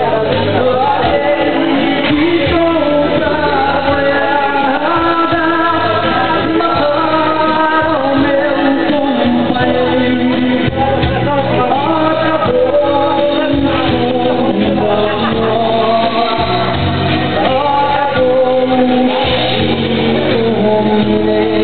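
A man singing live into a microphone over amplified musical accompaniment, with long held notes that glide between pitches.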